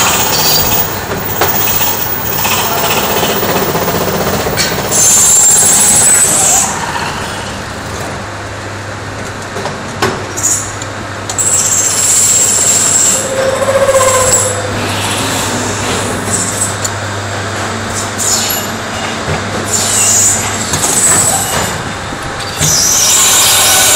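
Capstan lathe running and machining metal: a steady motor hum under irregular, harsh cutting noise, with high-pitched squeals coming and going as the tool works the part.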